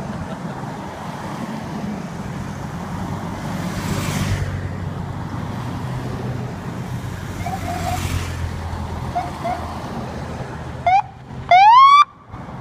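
Vehicles passing one after another on a highway, with tyre and engine noise swelling as each goes by. Near the end, a police car gives a short siren blip and then a louder rising whoop that cuts off suddenly, the loudest sound.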